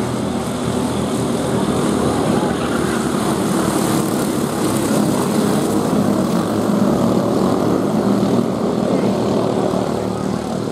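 A pack of racing karts with 5 hp Briggs & Stratton Raptor flathead single-cylinder engines running hard, several engines at once at different pitches. They grow louder as the karts come round toward the fence and fall away again near the end.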